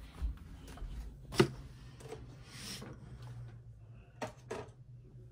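Handling noise as the camera is moved around: a few sharp clicks and knocks, the loudest about a second and a half in and two more near the end, over a faint steady low hum.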